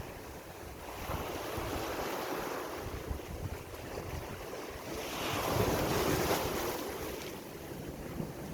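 Sea waves washing ashore, swelling to a louder wave about five seconds in, with wind buffeting the microphone.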